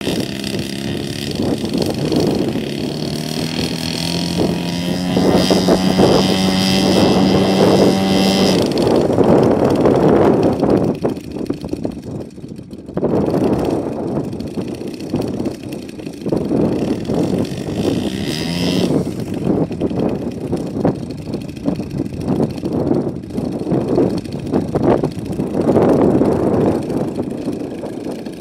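Engine of a one-third-scale Waco YMF-5 radio-controlled biplane running on the ground while the model is held and then released. The pitch creeps up over the first several seconds, and after that the sound swells and dips with the throttle.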